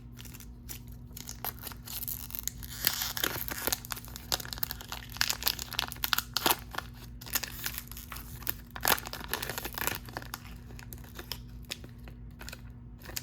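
Trading card pack wrapper being torn open and crinkled by hand, with irregular crackles and clicks throughout, over a faint steady low hum.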